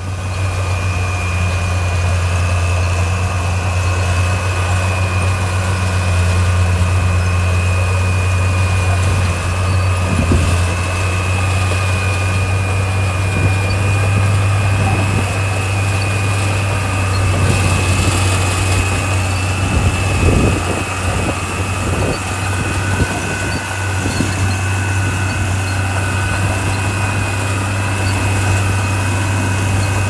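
Diesel engine of heavy road-building machinery running steadily with a low drone and a thin, steady high whine above it. A few short knocks and rattles come midway through.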